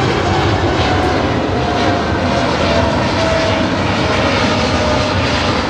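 Airliner flying past, its jet engines loud and steady, with a whine that slowly falls in pitch.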